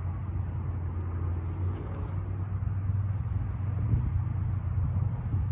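Steady low rumble of road traffic, with no distinct sounds standing out from it.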